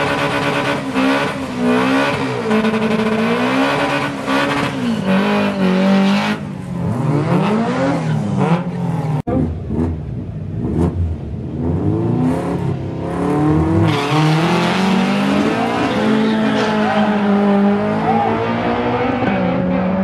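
An old Toyota Corolla sedan's engine revving hard during a burnout, the revs rising and falling again and again over spinning, squealing tyres. After a sudden cut about nine seconds in, the engine revs again and the car launches, its revs climbing and then holding high as it pulls away.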